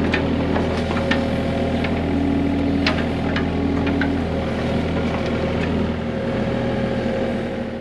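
Mini excavator's diesel engine running steadily, with a dozen or so scattered sharp clinks and knocks from the bucket working in rocky dirt.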